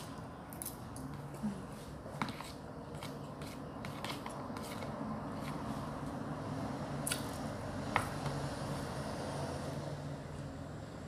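Close-up eating sounds: chewing food, with a few sharp clicks of a metal spoon against a plastic container, over a steady low hum.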